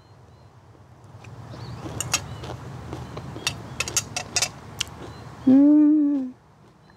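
Eating utensils clicking against a dish a dozen or so times as food is picked up, then, near the end, a short hummed "mmm" of enjoyment at a steady pitch.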